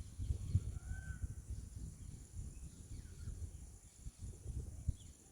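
Low, uneven rumble on the microphone, with a faint short bird call about a second in and a few fainter chirps.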